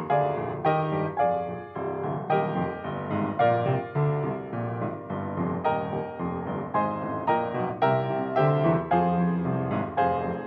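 Piano music: a melody of separate struck notes over lower bass notes, playing without a break.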